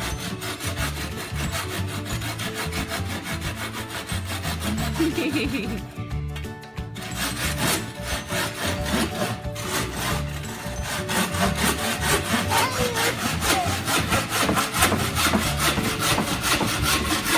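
Saw cutting through wood in quick, even back-and-forth strokes, with a brief pause about six seconds in before the sawing picks up again.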